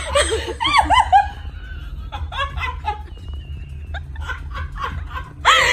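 People laughing in short bursts, breaking into louder laughter near the end.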